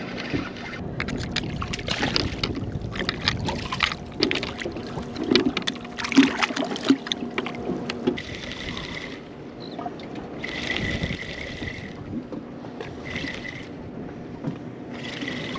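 Spinning reel cranked in short bursts during a jerk-and-reel retrieve: a whirring that starts and stops every second or two. Scattered clicks and knocks come from rod and reel handling.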